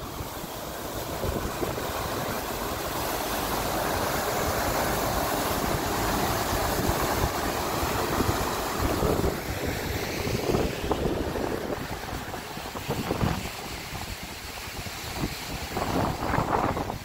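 Steady rush of water pumped over a FlowRider surf simulator's sheet wave, with wind buffeting the microphone. The water rush fades after about ten seconds, leaving uneven gusts of wind.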